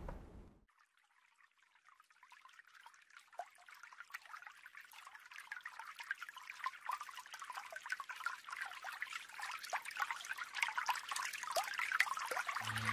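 Water trickling and dripping, a fine patter of small drops. It fades in from silence about two seconds in and grows steadily louder.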